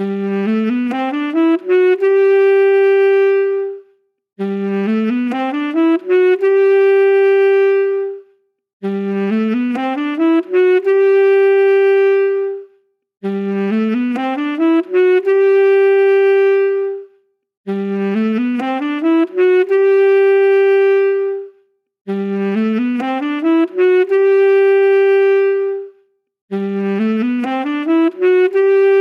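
Saxophone playing a quick stepwise run that climbs about an octave, then holding the top note for about a second and a half before a brief gap. The same phrase repeats identically about every four and a half seconds, seven times, like a loop.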